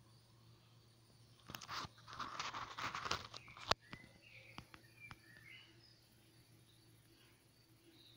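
About two seconds of rustling and crunching ending in a sharp click, then a few faint bird chirps over steady outdoor insect sound.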